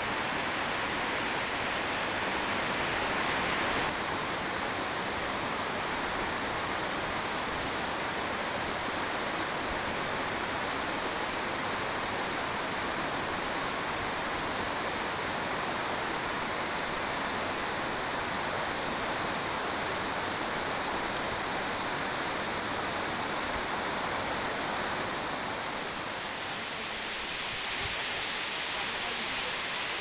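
Tall waterfall pouring down a rock face onto boulders: a steady, unbroken rush of falling water, dipping slightly in level near the end.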